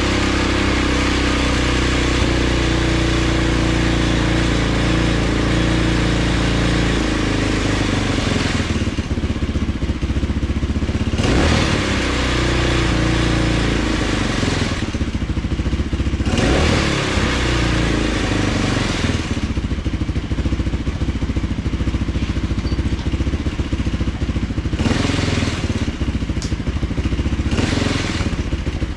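Tao Motors Mudhawk 200 ATV's single-cylinder four-stroke engine running, steady at first, then revving up and easing off several times from about seven seconds in, as it is put in gear and driven through its belt-drive centrifugal clutch.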